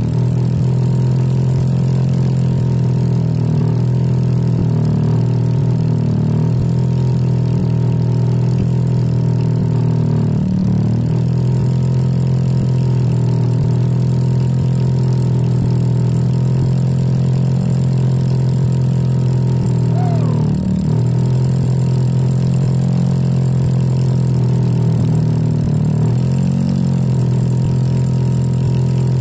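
Bauer electric rotary hammer drilling steadily into solid rock, a loud continuous hammering drone. Its pitch dips briefly a few times as the load on the bit shifts.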